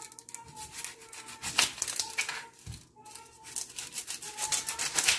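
Dry onion skin crackling and rustling as it is peeled off an onion with a small paring knife on a wooden cutting board, in irregular scratchy strokes.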